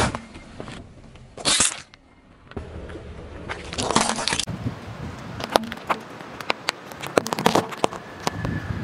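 A car tyre rolling slowly over small objects on asphalt and crushing them: gritty crunching with many sharp cracks and snaps. The cracking is densest near the end, as a row of sidewalk chalk sticks breaks under the tyre.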